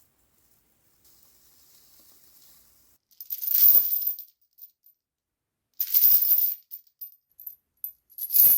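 Three short bursts of rattling from small hard objects shaken or jostled, about two and a half seconds apart, with a bright, jingly top.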